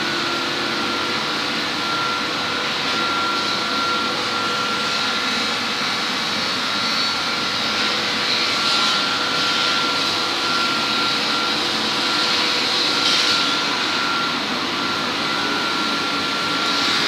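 CNC wood-turning lathe machinery running: a steady mechanical whir with a high, steady whine over it, and a couple of brief louder hisses partway through.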